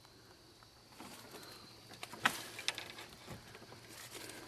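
A few light, sharp knocks and clicks over faint rustling, as someone moves about and handles things in an old wooden building.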